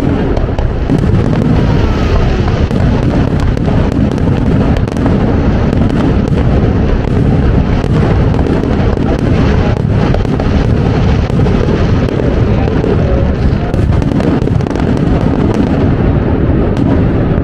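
Aerial fireworks shells bursting in a rapid, near-continuous barrage, their booms and bangs overlapping with no gap.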